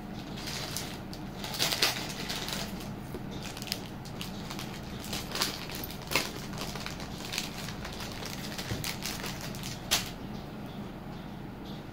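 Handling noise from jewellery pieces being moved and shown: scattered small clicks, clinks and crackles, the loudest about two seconds in and near the end, over a steady low hum.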